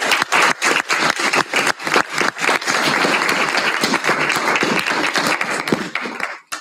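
Small audience applauding, a steady patter of hand claps that stops fairly abruptly near the end.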